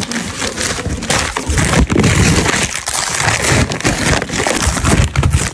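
Paper mailing envelope being handled and opened: loud crinkling and crumpling paper with irregular bumps of handling.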